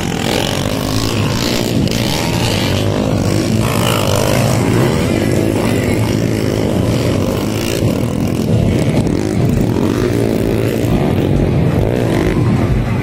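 Dirt bike engines revving as the bikes race over the track, their pitch rising and falling again and again as the riders open and close the throttle.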